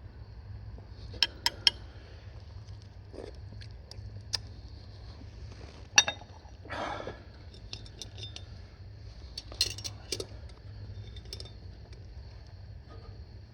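Metal camp cookware clinking as utensils knock against pots: three quick clinks near the start, a sharp louder one about six seconds in, and a few more near ten seconds, over a steady low hum.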